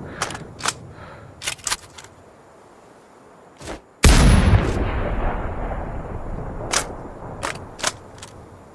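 A single shot from a Barrett M107A1 .50 BMG semi-automatic rifle about four seconds in: a sudden loud blast followed by a long rolling echo that fades over several seconds. Scattered sharp clicks come before and after the shot.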